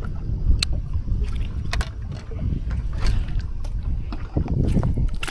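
Wind rumbling on the microphone in an open fishing boat, with scattered light knocks and clicks of gear being handled as a fish is brought in.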